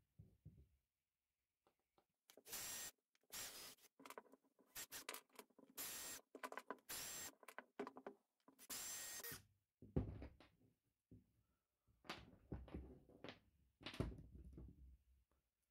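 Cordless drill-driver running in several short bursts, backing screws out of a wooden bending jig. About halfway through it gives way to knocks and clatter of wooden clamp pieces and loose screws set down on the workbench.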